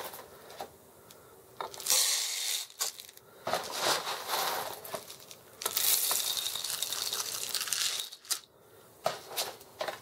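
Whole roasted coffee beans poured into the clear plastic bean hopper of a Capresso CoffeeTEAM GS grinder-coffee maker, a rushing rattle of beans in three pours, the last and longest lasting over two seconds.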